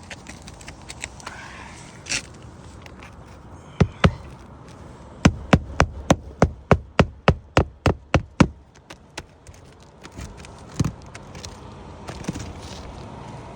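Hammer striking roofing nails, a quick run of about fifteen blows at roughly four a second, with a couple of single knocks before and one after.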